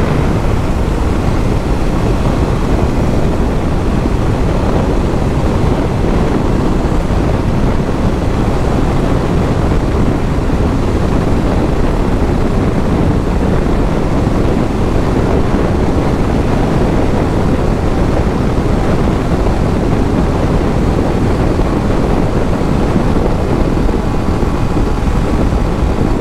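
Steady rush of wind on a helmet-mounted microphone while riding a Yamaha Lander 250 motorcycle at high speed, with its engine running underneath the wind noise.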